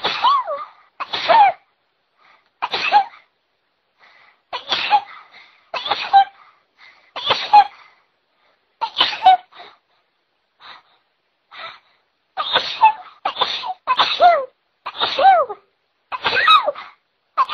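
A person sneezing in a long, uncontrollable fit: about a dozen loud voiced sneezes one after another, each ending in a falling 'choo', with shorter gaps between them near the end.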